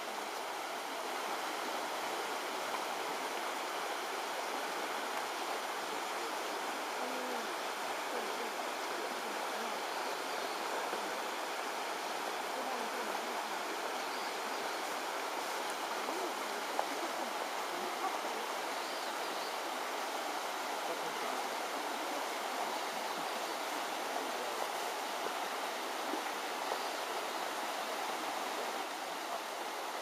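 Shallow rocky river flowing: a steady rush of water over stones.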